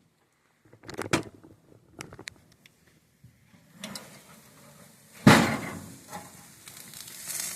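A few clicks and knocks, then a loud knock about five seconds in, over a faint hiss.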